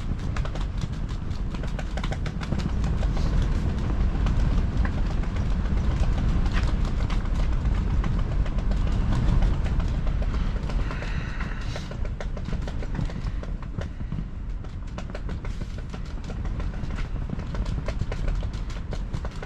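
Strong wind buffeting the microphone as a steady low rumble, with the ice-fishing shelter's fabric flapping and rattling in the gusts.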